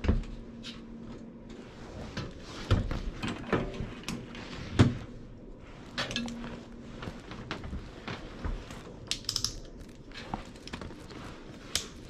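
Scattered clicks, knocks and light metal clinks from multimeter test leads and probes being handled against an air handler's sheet-metal cabinet. The loudest knock comes a little under five seconds in, with a quick run of clicks a little after nine seconds.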